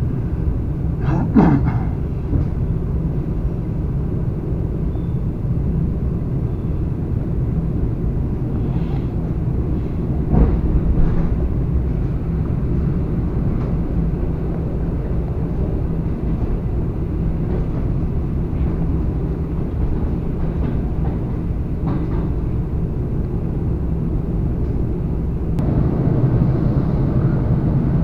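ED4M electric train running along the line: a steady low rumble of wheels on the rails, with a few sharp clacks from the wheels here and there. The rumble gets a little louder near the end.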